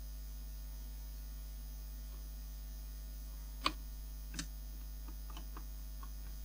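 Steady low mains hum, with two sharp clicks a little past halfway and a few fainter ticks near the end as small parts of the cassette recorder are handled and refitted.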